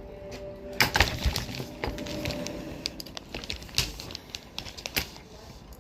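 Handcuffs being handled and unlocked with a key: a series of sharp, irregular metallic clicks and rattles, the loudest about a second in and again near the end.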